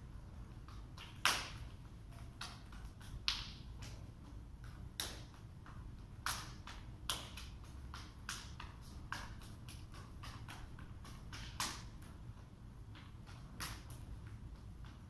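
Scattered short squeaks and slaps, about a dozen at irregular intervals, from two barefoot partners stepping and pivoting on a glossy floor and meeting arm to arm in a knife-flow drill. A faint steady room hum lies underneath.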